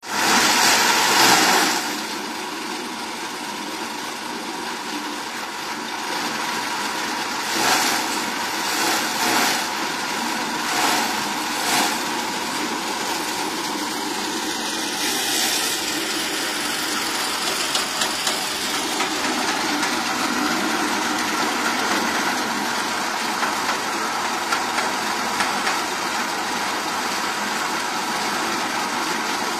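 Small electric chaff cutter running steadily, with louder surges of chopping and rustling each time a bundle of dry straw is fed into its blades.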